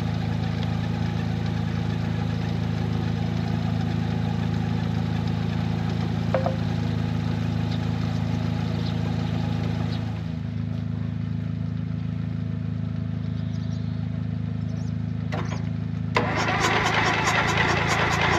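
Valmet 500 tractor's diesel engine idling steadily. About two seconds before the end, a louder sound with regular beats comes in over it.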